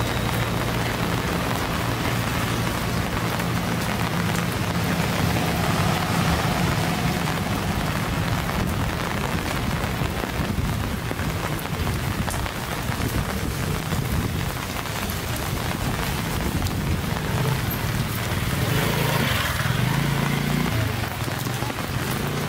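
Steady rain falling on hard surfaces, with a low, steady hum underneath.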